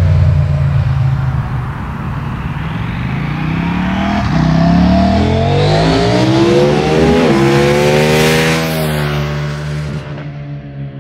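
KTM 790 Duke's parallel-twin engine through an Akrapovič exhaust, accelerating hard with rising revs broken by quick upshifts. The sound fades near the end.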